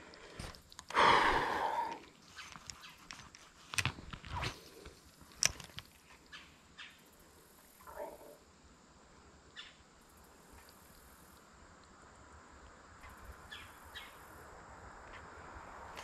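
Handling noises from a micro fishing rod and reel being cast and worked: a loud rustle about a second in, then a few sharp clicks and knocks, over a faint hiss that slowly grows toward the end.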